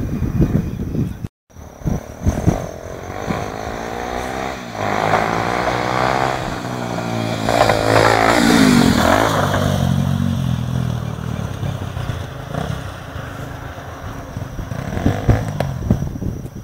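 Honda XR250 Tornado's single-cylinder four-stroke engine revving up, loudest and highest in pitch about halfway through, then its pitch drops away and it runs on more steadily. There are choppy thumps near the start and end, and the sound cuts out completely for a moment about a second and a half in.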